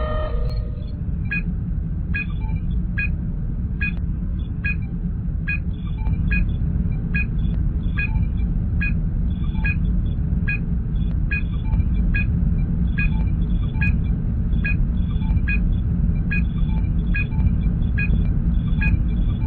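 Star Trek starship bridge ambience sound effect: a steady low engine hum with a short electronic scan blip repeating a little more than once a second. The hum grows slightly louder about six seconds in.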